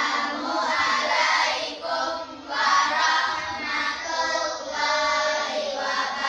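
A class of schoolchildren singing together in unison, in phrases with short breaks between them.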